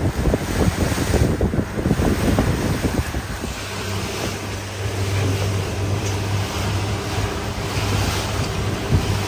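Bay boat running at speed over open water: rushing water along the hull and wind buffeting the microphone, with a steady low engine drone that comes up clearly a few seconds in.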